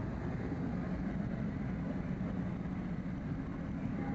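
Steady low rumble of a ship's engines running as the vessel moves on the water.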